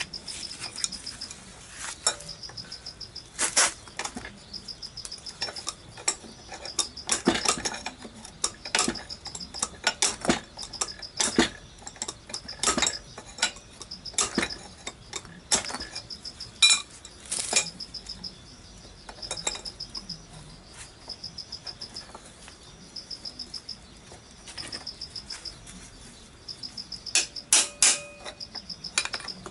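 Metal hand tools clinking and knocking on a scooter engine as a nut is worked with a wrench, with irregular strikes throughout and a quick run of hammer blows on a chisel near the end. Insects chirp in short repeating pulses in the background.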